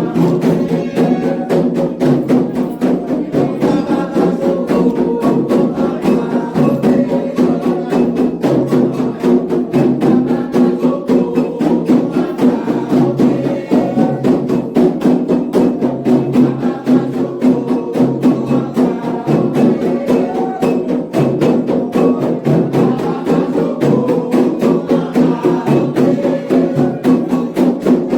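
Candomblé xiré music: atabaque hand drums and an agogô bell playing a fast, steady rhythm, with voices singing a cantiga over the drums.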